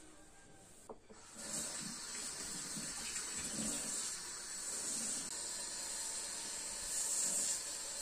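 Kitchen tap running a steady stream into a stainless steel sink basin, starting about a second and a half in: water splashing as the sink is rinsed.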